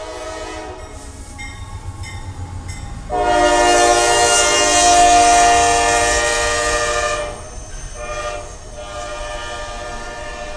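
Norfolk Southern AC44C6M diesel locomotive sounding its air horn for the grade crossing as it leads the train past. There are shorter blasts first, then one loud long blast from about three to seven seconds in, then another short blast, over the low rumble of the train.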